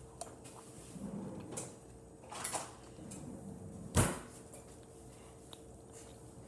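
Handling noises of a toy mystery box and its packaging being worked open: scattered rustles and light knocks, with one sharp knock about four seconds in.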